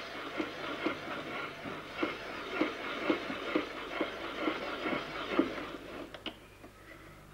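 A quick, uneven series of mechanical clicks and clatter, about two knocks a second, as something is worked by hand. It thins out to a few scattered clicks near the end.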